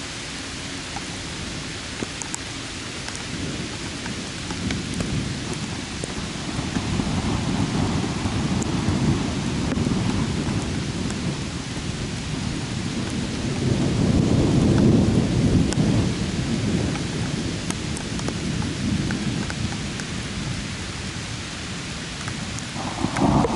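Steady heavy rain with a long roll of thunder that builds over several seconds, is loudest about halfway through, then dies away. A new, sharper peal of thunder breaks in near the end.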